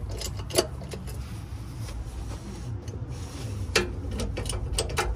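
A few sharp, irregular clicks and metallic knocks from hand work on a truck engine as it is jacked up, over a steady low hum. Most of the clicks come in the second half.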